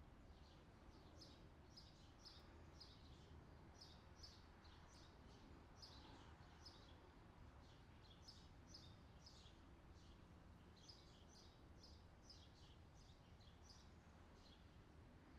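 Faint outdoor summer ambience: small birds chirping, quick high chirps in runs, over a low steady background hiss and hum.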